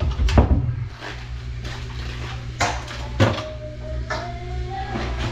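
Kitchen handling sounds: a metal can and dishes knocking and clinking on the counter as sauce is poured from the can into a plastic zip-top bag. There are several separate knocks, and a faint tone slowly rises near the end.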